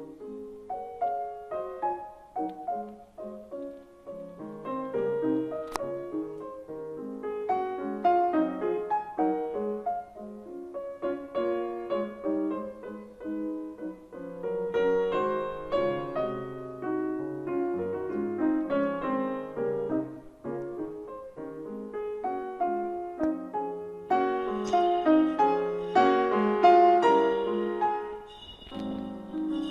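Background music: a piano playing a flowing run of notes, growing fuller and louder near the end.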